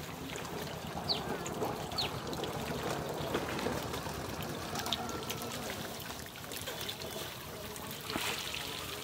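Water trickling and dribbling off a mesh fishing net as it is hauled up out of shallow floodwater, with a somewhat louder splash near the end.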